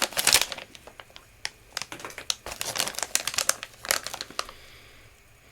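Plastic snack bag of popcorn crinkling and crackling as it is handled and opened. The crackles are dense at first and die away near the end.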